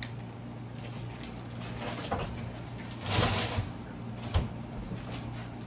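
Kitchen handling sounds over a steady low hum: a short sliding scrape a little past the middle, then a single sharp knock like a door or cupboard shutting.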